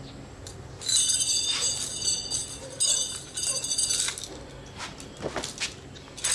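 Nunchaku's metal chain jangling and clinking in quick bursts as the nunchaku is swung through a series of strikes.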